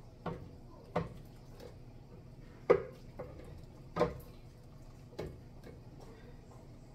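Irregular sharp knocks, about seven, the loudest a little under halfway through, as thick blended salsa is knocked out of a blender jar into a cooking pot.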